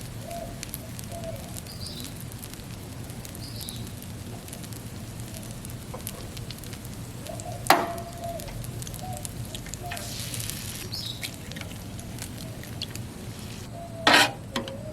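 Three eggs sizzling on a Blackstone griddle top that has been switched off, cooking on the plate's leftover heat, with faint crackling throughout. A sharp knock about halfway through and another near the end.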